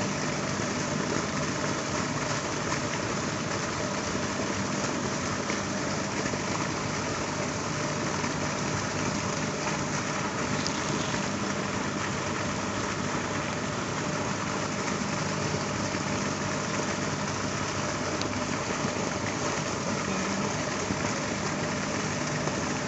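A motor running steadily: a constant low hum under an even hiss, unchanging throughout.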